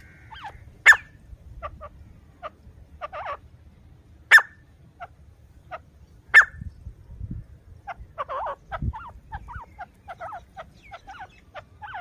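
Grey francolin making soft clucking calls: a string of short clucks, with three louder, sharp notes about 1, 4.5 and 6.5 seconds in, and a quicker flurry of clucks in the last few seconds.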